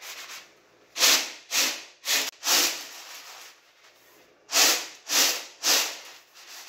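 Freshly roasted coffee beans swishing and rattling across a round aluminium tray as it is shaken back and forth to cool them and loosen the chaff: two runs of four quick sweeps with a short pause between.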